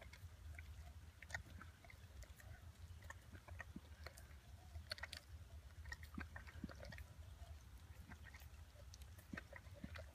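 Rhodesian Ridgeback licking and chewing at a slice of honeydew melon held to its mouth: faint, irregular clicks and smacks of tongue and jaws, over a low steady background hum.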